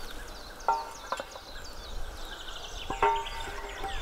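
Wooden blocks set into a metal ground sleeve, giving two knocks with a short metallic ring, about a second in and near the end. Birds chirp throughout.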